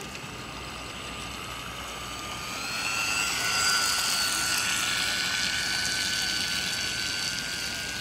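Small RC speed boat's motor whining at speed, a thin high whine that climbs in pitch and gets louder about three seconds in, then holds steady.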